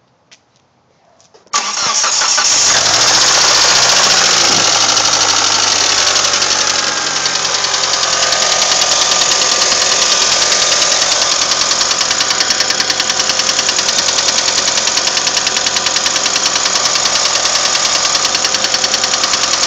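Mitsubishi 7-bolt 4G63 engine starting about a second and a half in and running at a fast idle, then settling after about five seconds into an idle with an even, rhythmic pulse. This is the engine knock that developed after a tune.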